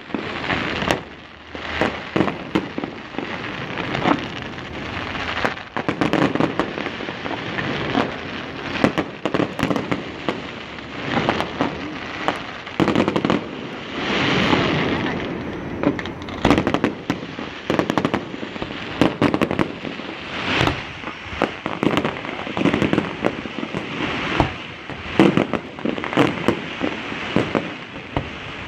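Fireworks display: aerial shells bursting in a rapid, irregular run of bangs with crackling between them.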